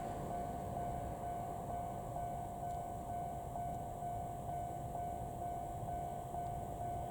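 Train running with a steady high-pitched whine over a low rumble.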